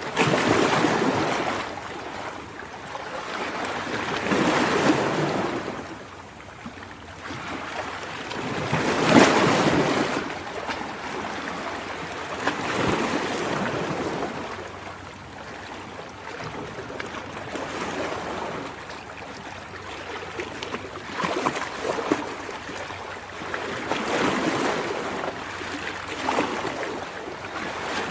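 Ocean surf: waves breaking and washing in, each surge swelling and easing every few seconds.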